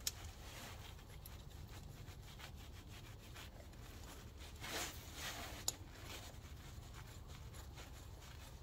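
Faint handling sounds as 10 mm bolts are threaded by hand into an engine's oil filter cover: light rubbing, a brief scrape about halfway through, and two sharp little metal clicks, one at the very start and one just after the scrape, over a steady low rumble.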